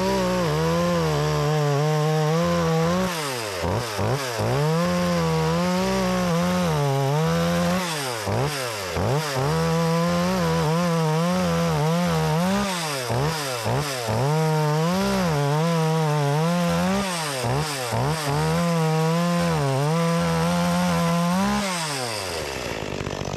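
Makita EA3200S two-stroke chainsaw running at full throttle while cutting through a wooden utility pole. Its engine note dips and recovers several times under load, then falls away as the throttle is released near the end. The saw is pulling well through the cut.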